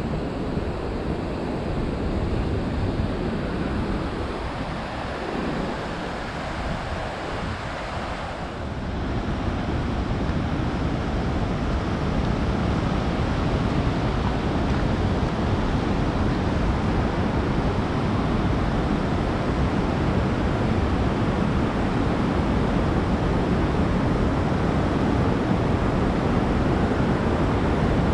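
Steady rushing wind buffeting the microphone, heaviest at the low end. It eases off for a few seconds, then picks up again and holds.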